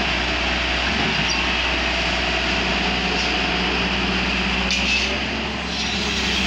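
JCB tracked excavator's diesel engine running steadily as the machine swings its boom and works soil, a continuous low hum.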